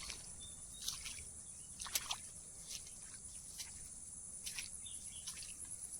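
Steady, high-pitched trilling of insects such as crickets, with a few brief rustles or clicks scattered through it.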